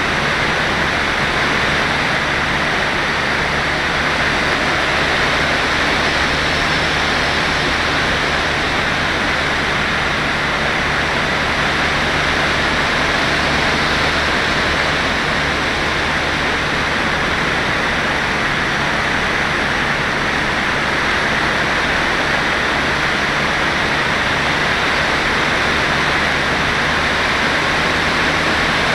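Steady rush of airflow over the microphone of an FPV glider's onboard camera in flight, an even hiss with a faint steady hum beneath it.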